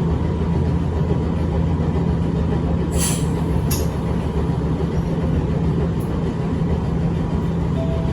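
Echizen Railway 5001-series electric railcar running, heard from inside the car: a steady low drone of motors and wheels on rail, with two sharp clicks about three seconds in, under a second apart.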